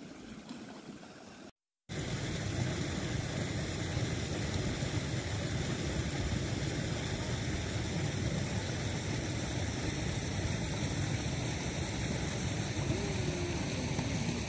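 Water running steadily in an irrigation channel, starting abruptly about two seconds in.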